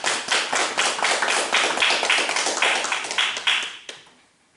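Audience applauding, individual hand claps standing out, fading away about four seconds in.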